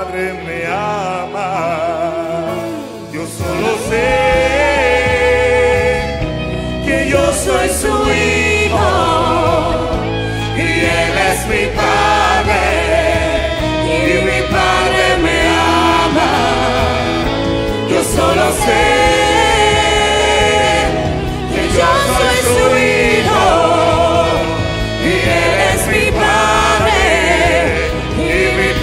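Live gospel worship song: a male lead singer on a handheld microphone with a choir, over instrumental backing whose low bass fills in a few seconds in.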